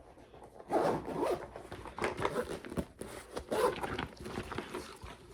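A zipper on a small bag being pulled in several short, rasping strokes.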